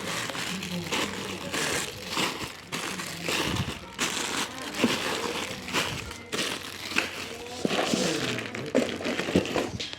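Modem packaging being handled, crinkling and rustling with many short crackles.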